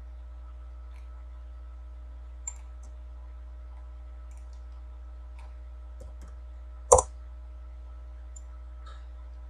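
Clicks of a computer mouse working the CAD program: a few faint clicks, and one sharp, loud click about seven seconds in, over a steady low electrical hum.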